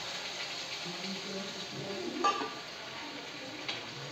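Water poured into a hot kadhai of frying masala and potatoes, sizzling, then a slotted metal spoon stirring the gravy and clinking sharply against the pan about two seconds in.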